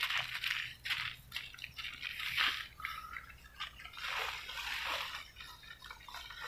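A small knife scraping and digging into soft, rain-soaked soil and wet leaf litter, with irregular scratches and rustles.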